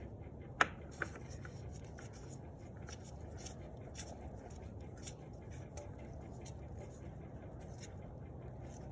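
New oil filter being spun on by hand onto a Honda CBR600 F4i's filter mount: faint scratchy rubbing and small ticks, with a sharp click about half a second in.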